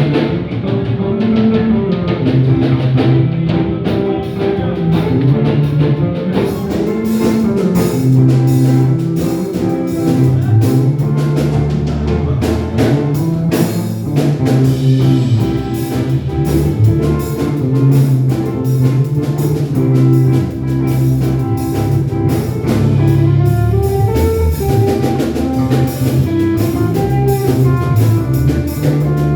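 Band rehearsing an instrumental passage: guitar and a bass line over a drum kit, with cymbals filling in about six seconds in.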